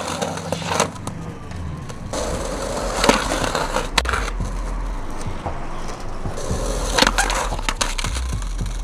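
Skateboard rolling on asphalt, its wheels giving a steady low rumble from about two seconds in, broken by several sharp clacks of the board and trucks, the loudest about seven seconds in.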